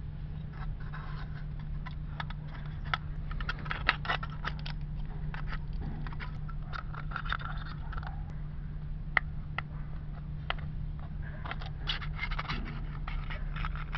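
Bent steel-wire crankshaft being threaded through holes in a thin aluminium drink can and handled: irregular small clicks, taps and scraping of wire against can metal, over a steady low hum.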